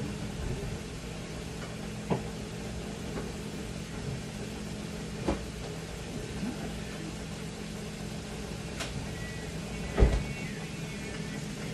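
Lamb and beef heating in a non-stick copper frying pan on a gas burner: a faint steady sizzle over a low steady hum. A few light clicks break in, and there is a louder knock about ten seconds in.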